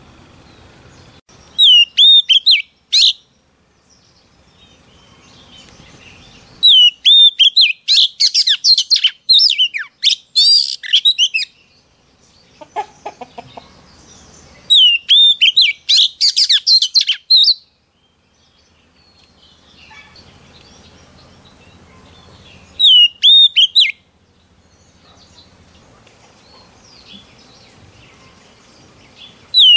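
Oriental magpie-robin singing in four loud bursts of rich whistled phrases with quick sweeping slurs, separated by pauses of a few seconds.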